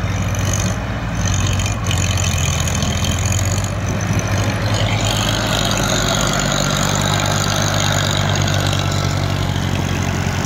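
Diesel engines of Farmtrac tractors running steadily under load as one tractor tows the other up out of a sandy pit. The engine noise grows a little brighter about halfway through.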